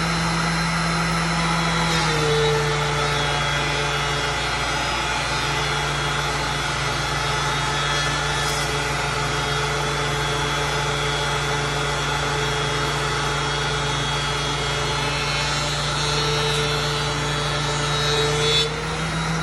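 Oliver planer running, with a white oak board feeding through the cutterhead from about two seconds in until just before the end. Under the cut the machine's steady hum drops slightly in pitch and carries a cutting noise; it returns to the free-running tone as the board leaves.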